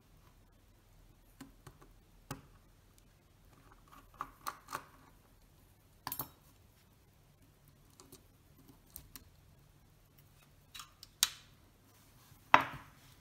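Scattered light clicks and taps of a precision screwdriver and tweezers worked on a Synchro-Compur leaf shutter and picked up and set down on the bench, while the self-timer is being taken out. The taps come irregularly, with louder ones about six seconds in and near the end.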